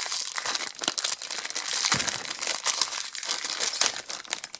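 Shiny plastic blind-bag packet crinkling and rustling as it is opened by hand, with a clear inner plastic bag pulled out, full of small crackles.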